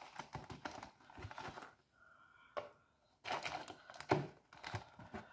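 Cardboard cocoa box being handled and scooped from with a spoon: crinkling and scraping, with scattered light clicks and taps.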